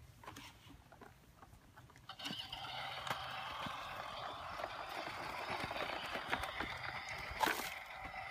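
Electronic engine sound effect from a battery-powered John Deere toy tractor, played through its small speaker, starting about two seconds in and running steadily, with light knocks of plastic toys on dirt and one sharper knock near the end.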